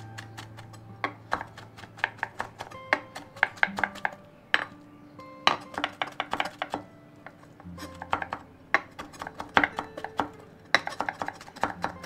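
Chef's knife rocking through blanched spinach on a wooden cutting board: rapid knife strikes on the board in quick runs, with short pauses between them. Background music plays underneath.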